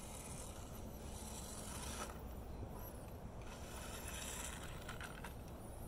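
Small electric motors and geared drivetrains of HBX 2098B Devastator 1/24-scale micro RC crawlers whirring in spurts, with a few light knocks as they clamber off a kerb. A steady low rumble of wind on the microphone runs underneath.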